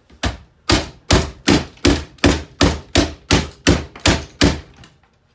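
About a dozen blows in quick succession hammering an old alarm clock, roughly two and a half a second, each a sharp knock with a heavy thud. They stop shortly before the end.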